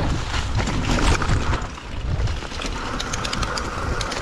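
Specialized Stumpjumper mountain bike riding down a loose, slippery dirt trail: tyre noise on the dirt and the bike rattling, with a cluster of sharp clicks about three seconds in. Wind buffets the microphone.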